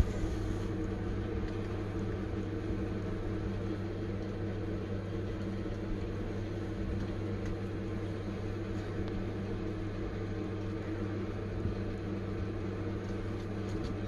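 Steady low electrical or machine hum with even overtones, unchanging throughout, with a few faint clicks on top.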